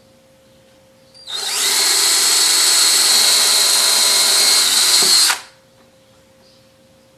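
Cordless drill boring a hole in wood: it spins up quickly, runs steadily for about four seconds, then stops abruptly. It is one of the four outside holes in the birdhouse pieces.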